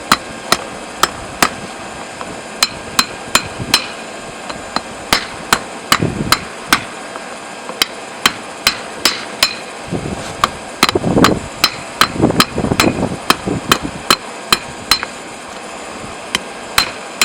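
Hand hammer striking a hot railroad spike on an anvil: steady, ringing blows about two a second as the spike's tip is drawn out into a knife point.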